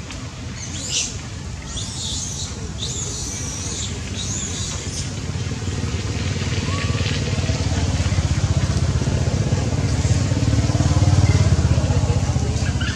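Low engine rumble of a passing motor vehicle, building to its loudest about eleven seconds in and then easing off. High-pitched chirping calls sound over it in the first few seconds.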